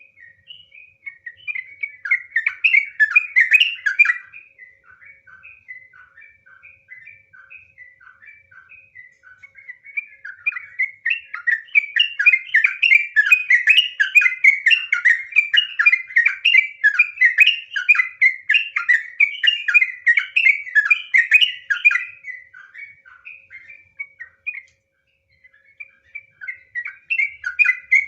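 Yellow-vented bulbul (trucukan) singing in rapid, continuous bubbling chatter: the long 'ropel' song. It swells into loud runs of notes, drops to softer, sparser phrases between, and pauses briefly before picking up again near the end.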